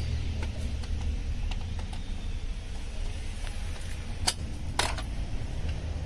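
Light clicks and taps of car door trim parts and small screws being handled, with two sharper clicks about four and a half seconds in, over a steady low rumble.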